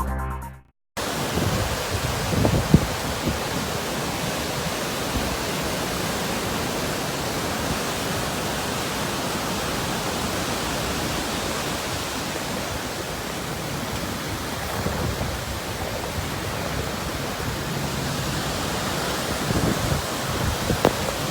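Typhoon wind and heavy rain as a steady, even hiss, with a brief louder spike about three seconds in.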